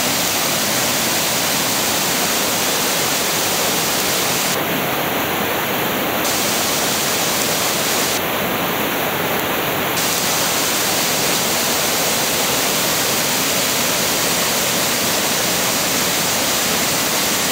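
Wensley Beck in spate pouring over a waterfall into a churning pool: a loud, steady rush of water. Twice the high hiss softens for a second or so.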